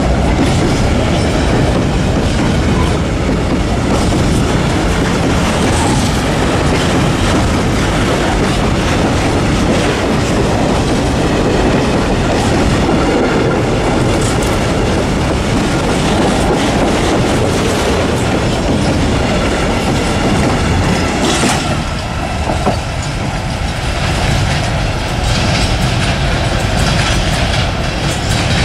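Freight train of open coal wagons rolling past close by: a steady rumble of steel wheels with clickety-clack over the rail joints. About three-quarters of the way through, the last wagon goes by and the rumble eases as it moves away.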